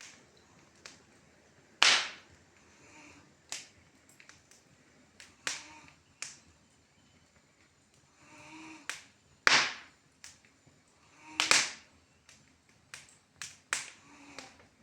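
Wood fire crackling in a fireplace: irregular sharp pops and snaps, a few of them much louder than the rest, over a faint background.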